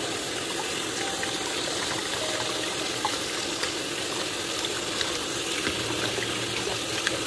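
Kitchen tap running steadily into a water-filled pot in a sink, the stream splashing over raw crabs being rinsed under it, with a few faint clicks.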